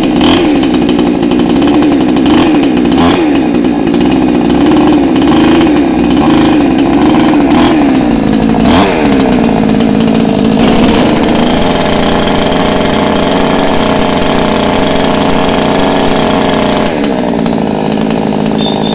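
58 cc two-stroke petrol chainsaw running unloaded, not cutting, just after being started. Its engine note wavers up and down for the first eight seconds or so as the throttle is worked, then runs steadier and drops lower about two seconds before the end.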